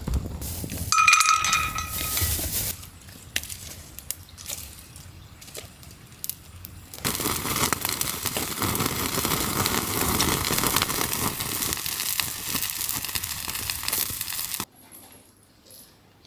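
Camping gear being handled: a metal clink about a second in that rings briefly, a few small clicks and knocks, then a long stretch of steady rustling that cuts off suddenly near the end.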